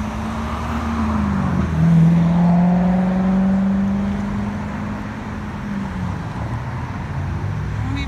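A motor vehicle's engine hum over a steady low traffic rumble. The hum drops in pitch about two seconds in, where it is loudest, then slowly climbs and fades out about six seconds in.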